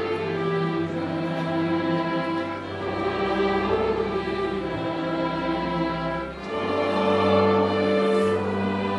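An orchestra of strings, brass and percussion playing a Christmas carol in slow, held chords that change a few seconds apart.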